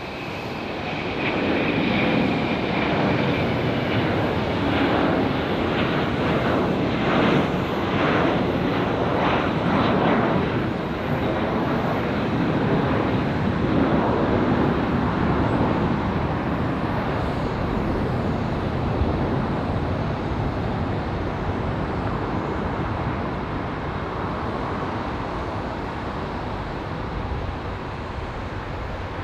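Boeing 717's two rear-mounted Rolls-Royce BR715 turbofans at takeoff thrust as the jet climbs out: a high whine over a loud jet rumble that crackles in the first half, then fades steadily as the plane climbs away.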